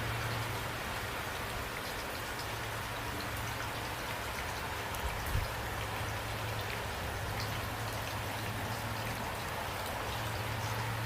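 Steady rain falling, a constant hiss with scattered individual drops ticking, over a steady low hum. There is one brief low thump about five seconds in.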